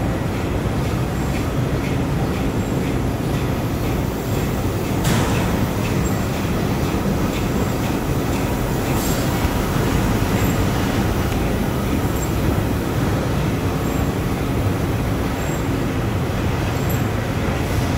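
Steady mechanical din of several high-speed roll die cutting machines running together in a factory hall, cutting paper cup fans from paper rolls. A brief hiss cuts through about five seconds in and again about nine seconds in.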